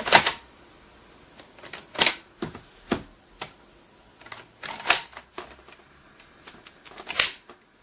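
Hard plastic parts of a Power Rangers RPM toy clicking and snapping as it is handled and its hinged panel is folded out and back: about eight sharp clicks at uneven intervals, the loudest near the start and about two, five and seven seconds in.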